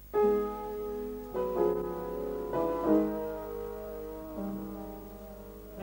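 Slow instrumental music on a keyboard instrument: held chords that start abruptly and change every second or so.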